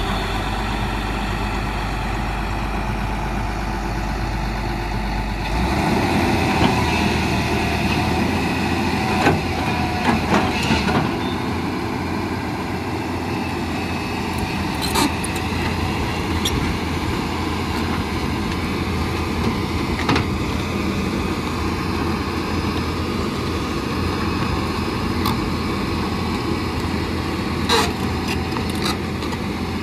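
Heavy diesel engine of a Hyundai 215 excavator running steadily; about six seconds in its note rises and grows louder as it speeds up. Occasional sharp metallic clanks and knocks sound over it.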